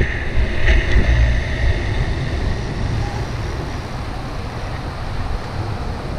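Wind buffeting the microphone in gusts over the steady wash of surf.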